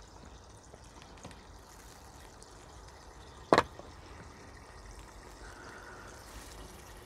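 Faint, steady trickling and lapping of pond water, with one sharp click a little past halfway.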